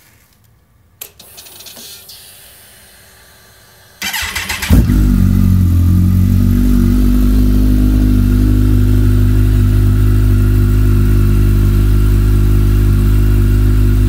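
Kawasaki ZX-14R SE inline-four engine breathing through Yoshimura R77 carbon slip-on mufflers: after a click about a second in, the starter cranks briefly about four seconds in, the engine catches, and it settles into a loud, steady idle.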